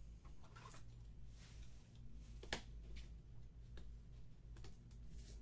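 Faint rustling and soft clicks of trading cards in plastic sleeves and rigid top loaders being handled, with one sharper click about two and a half seconds in, over a steady low hum.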